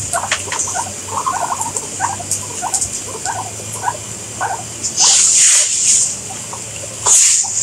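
A crowd of guinea pigs making many short squeaks and chirps. A louder burst of hissing noise comes about five seconds in and lasts about a second, with a shorter one near the end.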